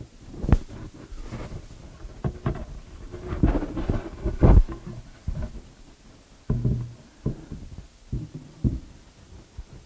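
Irregular wooden knocks and thumps, about a dozen, as a long strip of wood is handled and set against a plywood cabinet case. The loudest knock comes about four and a half seconds in.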